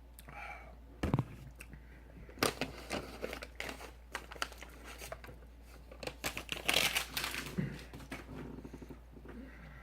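Paper fast-food packaging crinkling and rustling as it is handled, in irregular bursts of crackles about a second in, again from about two and a half to four seconds, and loudest around seven seconds.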